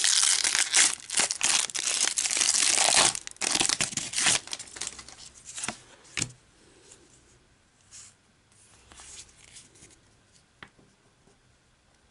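Foil wrapper of a Pokémon trading-card booster pack crinkling and tearing open for about four seconds. Then quieter rustles and a few sharp clicks as the stack of cards is handled.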